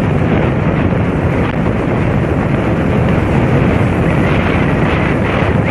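Steady rush of wind buffeting the microphone on a motorcycle riding at road speed, with the bike's running and road noise mixed in.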